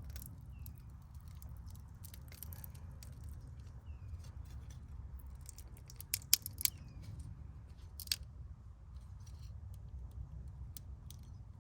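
Plastic clicking, creaking and scraping as a glued-on speaker surround is cut and pried off its plastic housing, with a few sharp snaps about six seconds in and one more near eight seconds. A steady low hum runs underneath.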